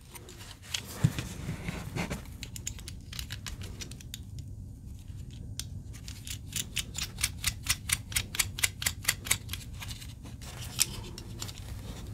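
3D-printed plastic parts of a pulley joint clicking and knocking as they are handled and fitted together by hand. In the middle comes a quick, regular run of small clicks, about five a second, for several seconds.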